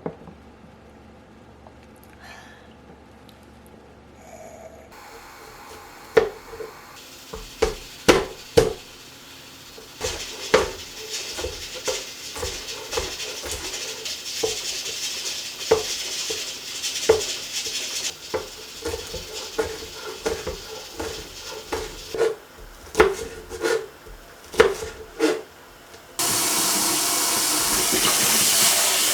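Knife chopping on a cutting board in irregular strokes, each a sharp knock with a short ring. Near the end a kitchen tap is turned on and water runs steadily.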